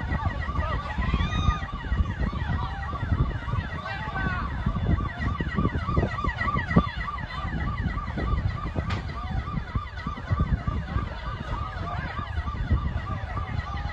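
Several emergency-vehicle sirens sounding together in a fast yelp, each rising and falling about four times a second, over a steady low rumble.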